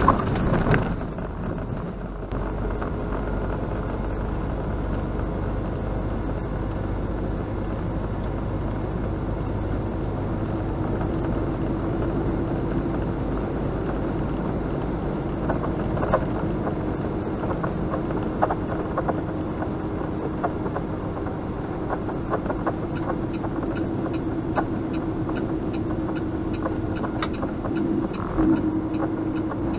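Semi truck's diesel engine running steadily at road speed, heard from inside the cab with road noise. In the first second there is a loud jolt as the truck crosses railroad tracks. A few cab rattles come later, and light ticking is heard in the last few seconds.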